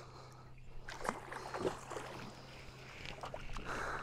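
Quiet sounds on a small aluminium boat: a faint steady low hum with a few light clicks and knocks while the line of a missed bowfishing arrow is drawn back in. A brief brighter rustle comes near the end.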